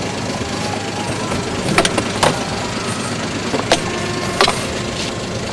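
Small fishing boat's engine running steadily at idle, with a few sharp knocks and clicks from gear being handled aboard.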